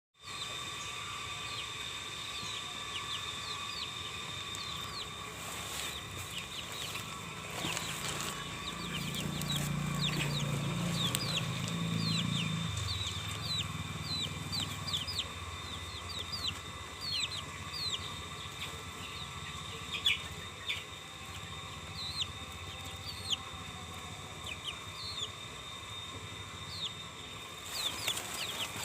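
Birds chirping: many short, high, falling chirps repeating throughout, over a steady high-pitched hum. A low rumble swells and fades about a third of the way in.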